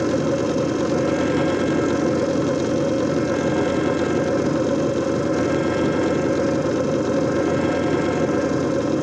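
JFJ Easy Pro disc repair machine running steadily: an even motor hum with a faint higher whine, unchanging throughout.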